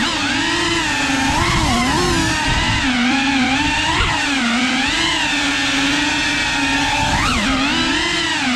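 FPV quadcopter's motors and propellers buzzing, the pitch rising and falling with every throttle change as it manoeuvres, with a quick sharp rise about seven seconds in.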